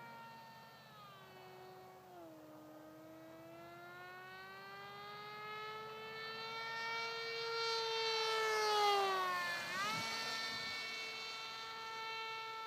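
Homemade foam RC speed airplane's motor and propeller whining in flight, the pitch sliding slowly down and back up with throttle. About nine seconds in it passes close: it is loudest there, and the pitch drops sharply as it goes by.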